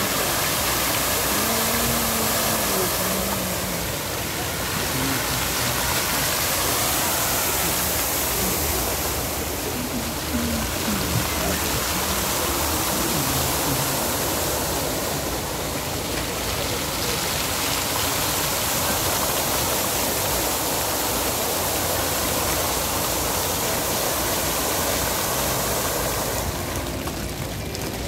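Many fountain jets spraying up and splashing back into a pool: a steady rush of falling water. Near the end the spray eases as the jets drop lower.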